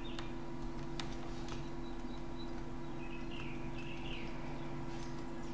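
Steady low hum of room tone, with a few faint sharp clicks in the first second and a half and several faint, short, bird-like falling chirps about three to four seconds in.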